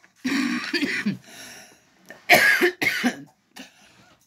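A woman coughing in a fit. First a longer rough bout near the start, then two sharp coughs close together about two seconds in.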